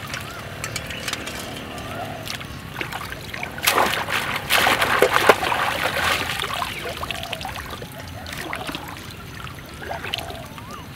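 Shallow paddy water splashing and sloshing as woven bamboo traps are lifted out and water drains from them, loudest for a couple of seconds from about four seconds in.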